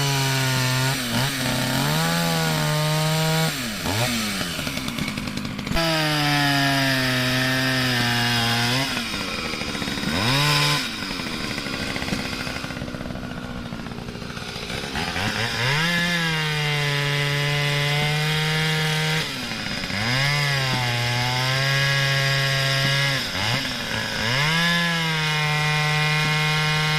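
Two-stroke chainsaw running at full throttle in long steady runs of several seconds, dropping sharply toward idle and revving straight back up between runs. Through a quieter stretch in the middle it mostly idles, with one short rev.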